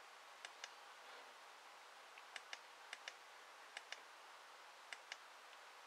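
Quiet clicking from working a computer: about five pairs of short, sharp clicks, each pair a split second apart, spread over the few seconds against a faint steady hiss.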